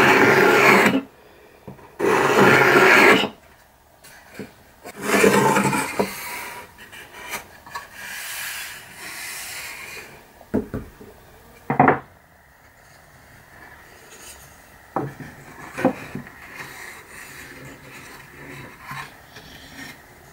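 Wooden hand plane taking shavings off the edge of a spruce frame: three long strokes within the first six seconds, then a softer stretch of scraping. After that come a few sharp wooden knocks as the frame and its slatted beech insert are handled.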